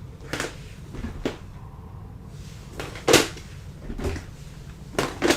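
Lego pieces clicking and knocking as they are handled and pressed together: a handful of short, sharp plastic clicks, the loudest about three seconds in.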